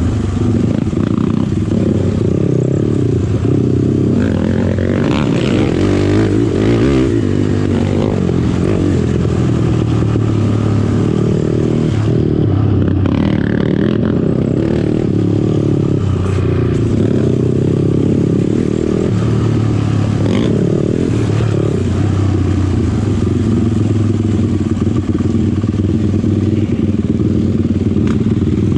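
Sport quad's engine running under throttle on a trail, its pitch shifting for a few seconds near the start, with intermittent rattles and clatter from the machine over rough ground.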